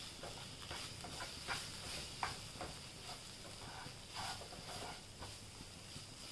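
Wooden spatula stirring and scraping a thick red masala in a non-stick frying pan, a scatter of short soft scrapes and taps over a faint steady sizzle.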